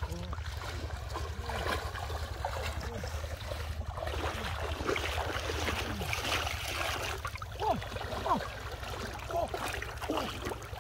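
Shallow river water sloshing and splashing around a wading man's legs, a landing net and a metal pot, with two louder splashes about eight seconds in. A low steady hum runs underneath.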